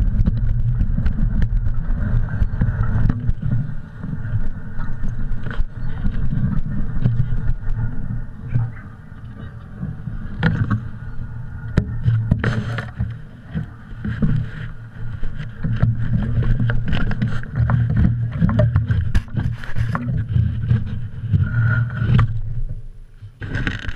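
Wind rumbling on the microphone of a camera moving along a dirt trail, with frequent knocks and rattles from bumps along the way.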